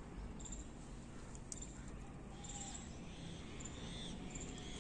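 Quiet outdoor background: a low steady rumble with a few faint bird calls.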